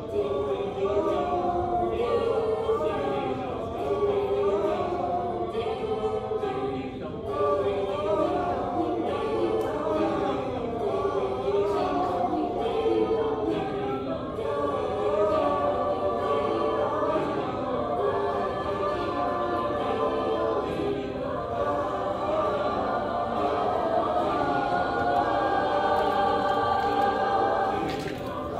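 Mixed high school choir of boys and girls singing together in parts.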